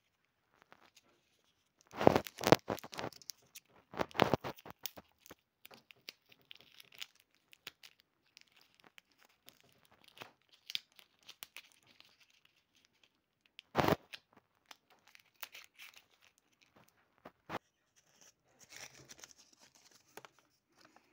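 Folded paper being handled and crinkled by hand, with louder rustling bursts about two, four and fourteen seconds in and quieter rustles and clicks between.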